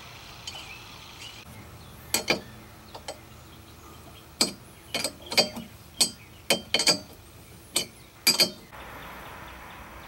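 About a dozen irregular sharp metallic clicks and clinks as the air line is worked onto the brass elbow fitting on the back of a train horn kit's air tank.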